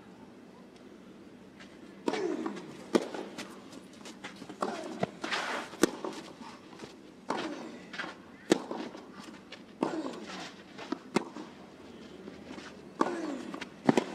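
Tennis rally on a clay court: racket strikes on the ball as sharp pops about every second or so, starting about two seconds in. Many strokes come with a short player's grunt that falls in pitch.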